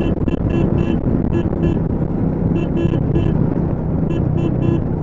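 Royal Enfield Meteor 350's single-cylinder engine running at road speed under a steady rush of wind on the microphone. Over it comes a run of short high-pitched beeps in quick groups of two to four.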